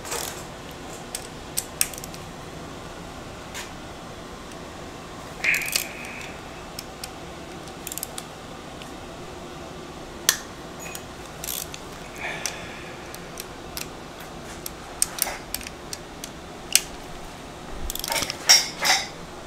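Metal hand tools and bolts clinking and clicking in short, scattered taps as parts are unbolted from a Honda H22A4 engine, with a denser run of louder clinks near the end.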